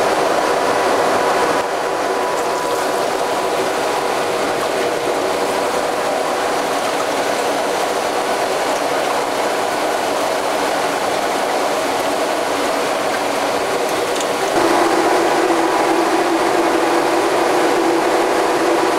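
Steady mechanical drone of running machinery, with a faint steady hum in it. About fourteen and a half seconds in it grows louder and a lower hum comes in.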